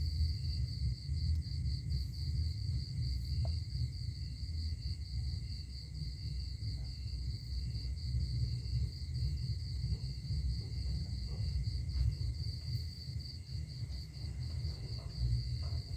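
Night insects, crickets among them, calling together: a steady high pulsing trill and a lower chirp repeated about twice a second, over a continuous low rumble.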